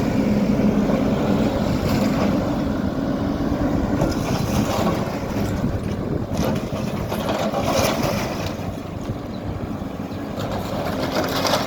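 HIDROMEK K4 Alpha backhoe loader's diesel engine running steadily, with short harsh rushes of scraping noise breaking in several times.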